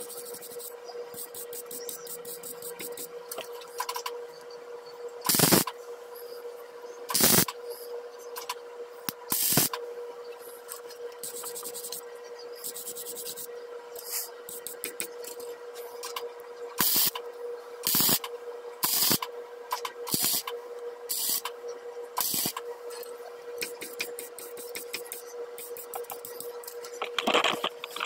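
Irregular scraping strokes of a hand tool on a welded steel tube held in a vise, some strokes much louder than others, over a steady hum.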